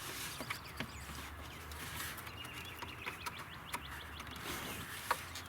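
Small birds chirping repeatedly in the background, with a few light clicks from a wire being handled and secured in the engine bay.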